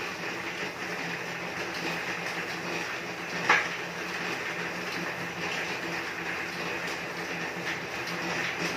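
Home elliptical cross trainer in use: its flywheel and pedal linkage run with a steady mechanical whir and clatter. One sharp, louder click comes about three and a half seconds in.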